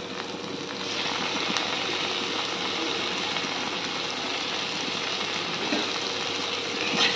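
Onions frying in butter in a kadai, a steady sizzle that grows louder about a second in as chopped tomatoes go into the hot pan.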